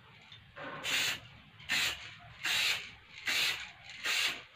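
Aerosol spray-paint can hissing in five short bursts, a little under a second apart, as the fender is sprayed in quick passes.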